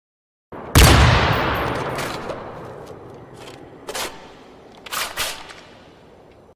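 Gunfire sound effect: one loud blast just under a second in that dies away slowly over several seconds, followed by several sharper shots, two of them close together near the end.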